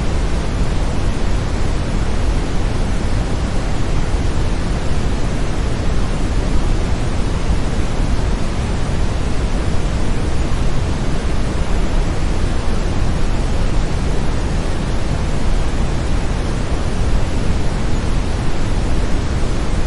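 Brownian (red) noise: a steady, even rushing hiss weighted heavily toward the low end, with no tones or changes.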